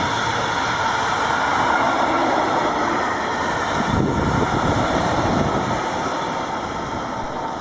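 A train passing at close range: steady, loud rolling noise of wheels on the rails.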